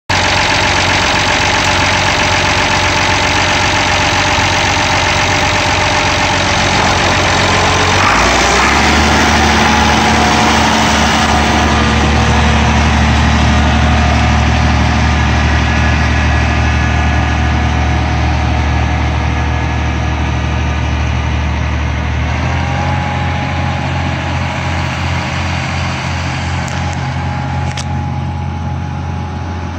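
White 2-105 Field Boss tractor's six-cylinder diesel engine running steadily. Its engine speed rises about eight seconds in as the tractor drives off, changes pitch again a little past twenty-two seconds, and grows slightly fainter near the end as the tractor moves away.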